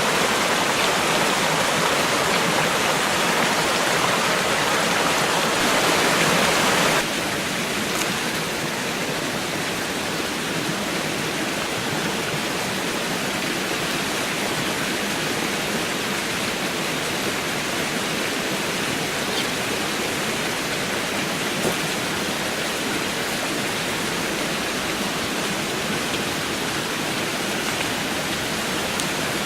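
Creek water rushing steadily, a little louder for about the first seven seconds.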